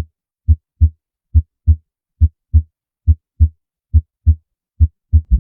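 Heart sounds: a steady lub-dub, the first and second heart sounds coming in pairs about a third of a second apart and repeating about seventy times a minute, with quiet gaps between the pairs.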